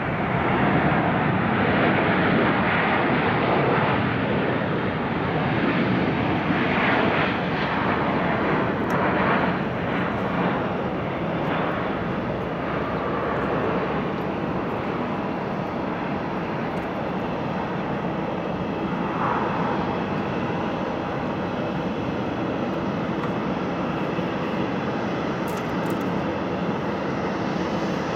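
The CFM56-7B jet engines of a Boeing 737-800 on its landing roll, heard from beside the runway as the airliner slows with its spoilers raised. The engine noise is loudest for the first several seconds, then eases to a steady run.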